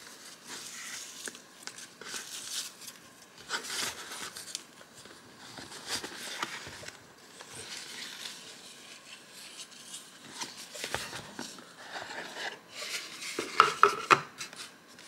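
Unboxing a Van Cleef & Arpels jewellery gift box: a satin ribbon is untied and slid off and the white cardboard box is worked open, a string of soft rustles and rubbing with light taps. The loudest part is a quick cluster of sharp taps a little before the end, as the box pieces are set down on the stone countertop.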